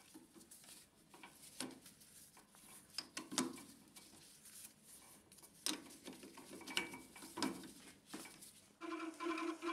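Faint metallic clicks and clinks as the three-jaw chuck of a hobby metal lathe and its aluminium workpiece are turned by hand to the next graduation. Near the end the lathe starts and runs with a steady, slightly pulsing hum.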